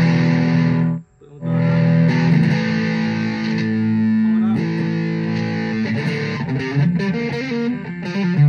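Les Paul-style electric guitar with Washburn humbucking pickups, played through distortion: strummed chords ringing out, with a brief stop about a second in before the chords carry on.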